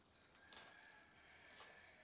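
Near silence: faint room tone, with a faint steady whine that starts about half a second in.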